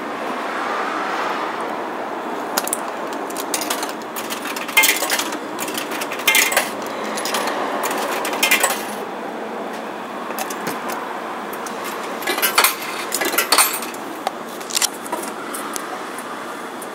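Coins clinking one at a time into a retro noodle vending machine's coin slot: a series of sharp metallic clinks over the machine's steady hum. A second cluster of clicks and clunks about two-thirds through comes as the button is pressed and the machine starts its cooking countdown.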